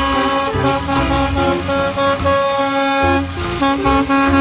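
Background music with a stepping melody over a steady bass line. Under it, a school bus is heard driving past.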